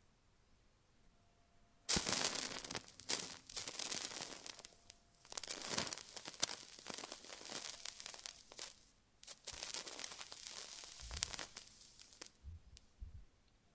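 Three bouts of rough, crackling tearing noise, each a few seconds long, separated by short pauses.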